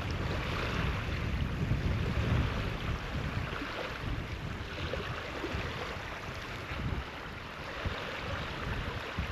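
Wind buffeting a GoPro's microphone: an uneven, gusty rumble and rush, somewhat stronger in the first few seconds.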